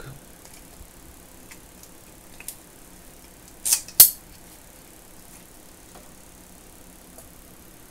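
Steel groove joint pliers handled and set down, giving a few faint clicks and, about four seconds in, two sharp metallic clinks close together.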